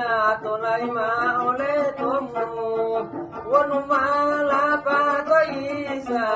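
Man singing long, wavering held notes over a plucked gambus, a wooden Malay lute, in a Gorontalo folk song.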